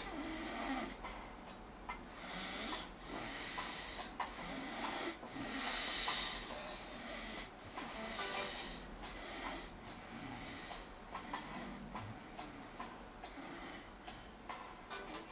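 A sleeping man snoring deeply. In the middle come four loud, hissy breaths, each about a second long and roughly two seconds apart, with softer breathing before and after.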